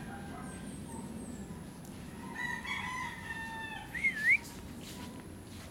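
A rooster crowing once, starting a little over two seconds in and ending in a short, loud wavering note. Faint high chirps of small birds near the start.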